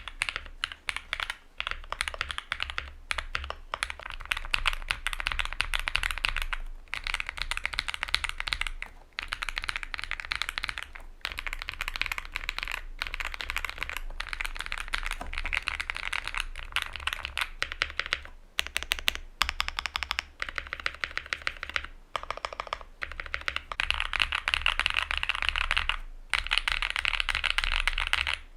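Fast, continuous typing on a Luminkey65 mechanical keyboard with an FR4 plate and lubed, filmed switches: a dense run of keystroke clacks, broken by short pauses every few seconds.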